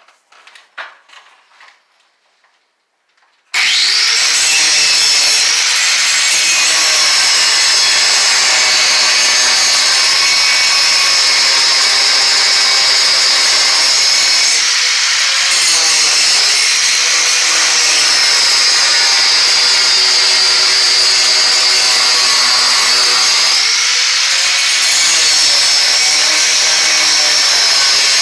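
A power tool starts abruptly about three seconds in and runs steadily with a high whine. Its pitch drops briefly twice, as a motor does when it takes load in a cut. Before that there are a few faint plucked notes of music.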